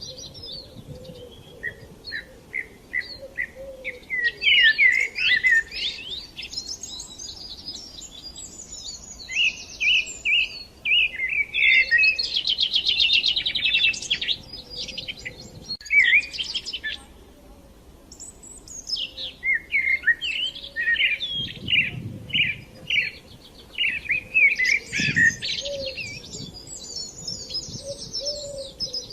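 Several songbirds singing and chirping together in quick, varied phrases and trills, with no pause.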